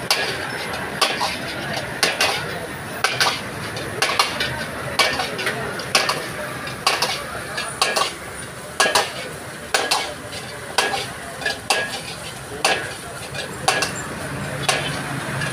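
A metal ladle striking and scraping a wok about once a second while noodles, likely chow mein, sizzle as they stir-fry over a gas flame.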